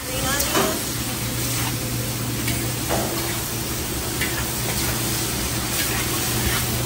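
Chow mein stir-frying in a large restaurant wok: noodles sizzling while a metal spatula and ladle scrape and knock against the wok every second or so, over a steady low hum.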